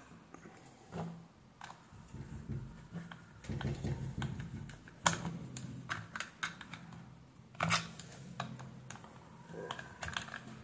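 Small clicks and light knocks of hands handling the plastic parts of an opened aquarium air pump and a screwdriver working a screw in its case, with two sharper clicks about halfway through and again some two and a half seconds later.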